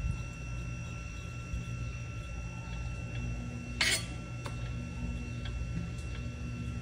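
Small kitchen handling sounds of a knife and fingers working tangerine segments on a wooden cutting board, over a steady low hum. About four seconds in, one short sharp knock of the knife against the board, the loudest sound, with a few softer clicks after it.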